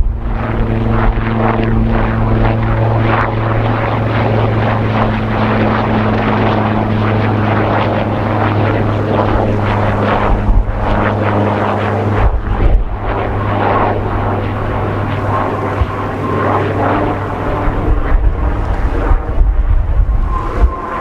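Coast Guard helicopter's engines and rotor running with a steady hum, heard through strong wind buffeting the microphone. The hum fades after about twelve seconds while the gusty rumble continues.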